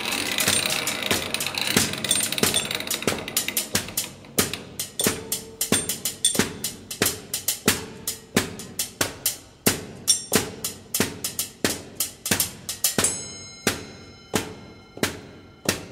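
Rhythmic percussion music: an even, machine-like beat of sharp hits, about three to four a second, with a few short ringing tones, thinning out near the end.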